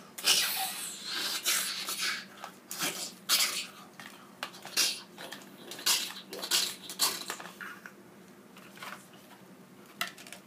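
Mouth-made fight sound effects: a run of short, breathy hissing whooshes and crash noises voiced by a person playing out a battle with plastic action figures. They thin out near the end.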